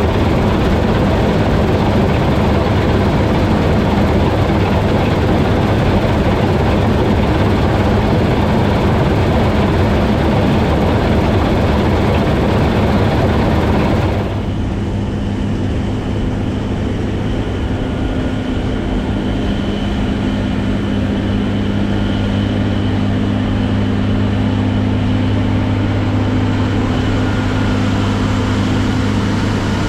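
Heavy farm machinery engine running steadily under load, with a loud rushing noise; about halfway through the sound changes abruptly to a quieter, steadier engine hum.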